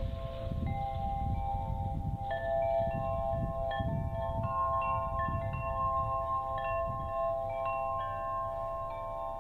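Chimes ringing, one note after another at uneven intervals, each tone held and overlapping the others, over a low rumble.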